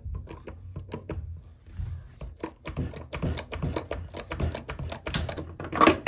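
Hydraulic knockout punch being pumped against a steel electrical panel wall: a run of irregular sharp clicks, then a louder crack near the end as the punch cuts through the metal.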